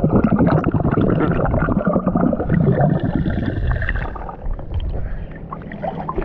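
Muffled underwater bubbling and gurgling, heard with the camera submerged in the sea, as a swimmer blows air out through his nose. The crackle of bubbles is loud for about four seconds, then quietens.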